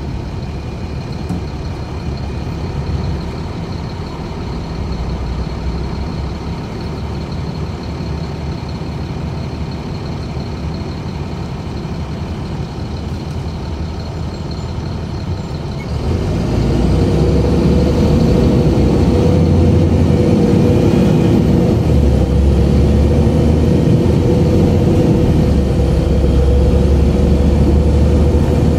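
Cabin sound of a 2002 Gillig Advantage LF30 transit bus with a Cummins ISC inline-six diesel. It runs quietly with a low rumble, then a little over halfway through the engine grows suddenly louder as the bus pulls harder. The louder stretch has a strong rumble, a steady hum and a faint whine rising in pitch.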